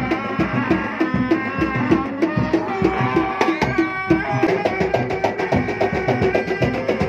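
Sundanese reak ensemble playing: fast, steady drumming with a held melody line above it.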